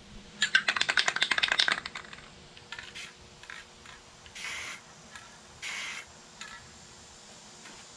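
Aerosol can of flat spray paint being shaken, its mixing ball rattling fast for about a second and a half, then two short hisses of spray about a second apart.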